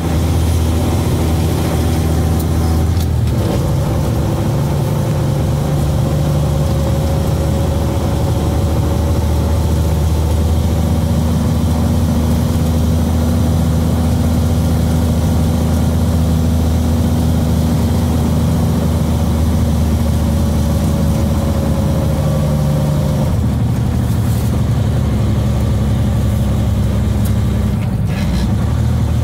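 A heavy truck's diesel engine running steadily while driving on the highway, heard from inside the cab. Its note changes about three seconds in and again near the end.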